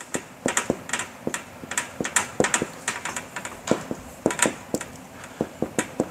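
Marker pen writing on a whiteboard: quick, irregular taps and short strokes of the tip on the board.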